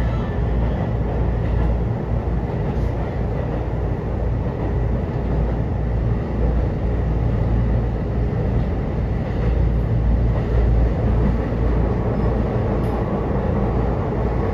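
Aonami Line train set 1101 running between stations, heard from inside the passenger car: a steady rumble of wheels and running gear with a faint steady hum.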